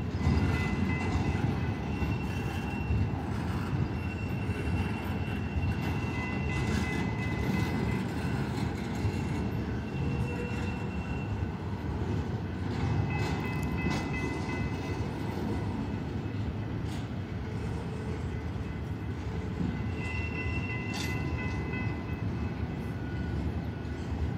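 Long BNSF double-stack intermodal freight train rolling slowly past: a steady low rumble of steel wheels on rail, with thin high wheel squeals that come and go every few seconds and a few sharp clanks from the cars.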